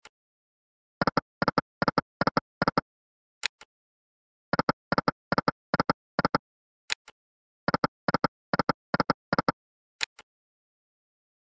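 Volcano Wealth online slot game sound effects: a sharp click as each spin starts, then a quick run of short, identical electronic blips as the reels stop one after another. This happens three times with no win sound, and a fourth spin click comes near the end.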